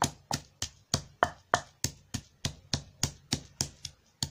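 Wooden pestle pounding chopped green chillies in a marble mortar: a steady run of knocks, about three to four a second, as the chillies are crushed to a paste.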